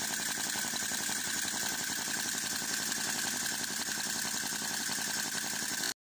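Chinese V2 (V-twin) flame-licker vacuum engine running fast on both cylinders, with a quick, steady pop-pop from each side. It stops suddenly near the end.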